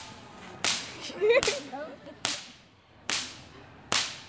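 A whip cracked four times in a slow, even rhythm, about one sharp crack every 0.8 s with one beat left out near the end, each crack ringing briefly. The cracks are played as a song's beat.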